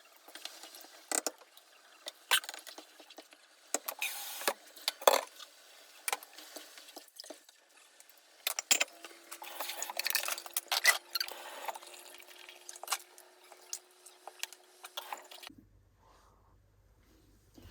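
Kitchen clatter: scattered clicks and knocks of utensils and dishes being handled while cooking. A steady hum joins about halfway through and cuts off sharply near the end.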